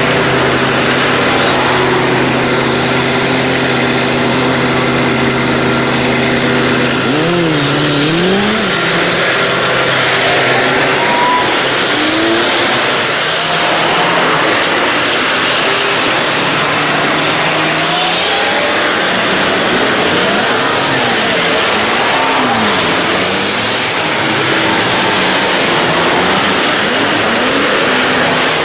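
Busy city road traffic: for the first several seconds a steady low engine hum from vehicles idling in a queue, then engines pulling away and passing, their pitch rising and falling, under a constant loud rush of tyres and motors.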